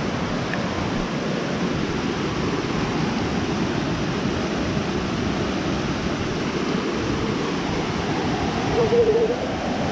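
Creek water rushing over rocks in small cascades: a steady, loud rush. A brief short tone sounds near the end.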